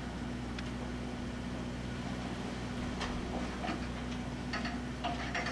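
Steady low drone of the party boat's engine running, with scattered short clicks and knocks in the second half.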